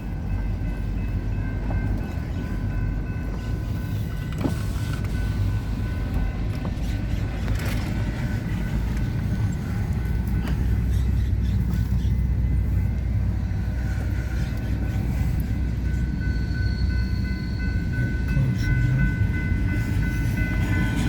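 Union Pacific freight train's cars rolling past a grade crossing, a steady low rumble with a faint high steady tone above it that grows stronger near the end.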